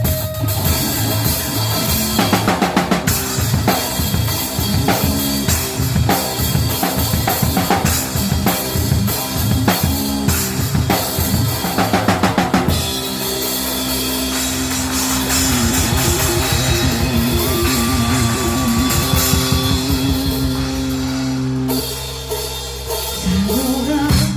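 Live band playing an instrumental passage with drum kit, bass and electric guitar: busy drumming with kick and snare for about the first half, then long held guitar notes over a steadier beat.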